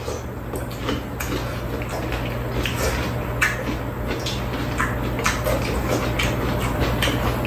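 Two people chewing pieces of crisp, juicy Korean melon (chamoe), with scattered wet crunches and lip smacks, over a steady low hum.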